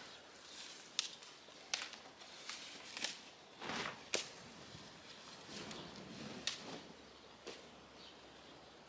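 Broad bean pods being picked by hand: a string of sharp, irregular snaps as the pods break off the stalks, with soft rustling of the plants in between.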